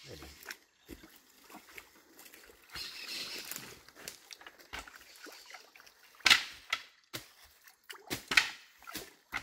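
Muddy water in a small pool sloshing and splashing as a gill net is worked through it by hand, with two sharp, loud splashes about six and eight seconds in.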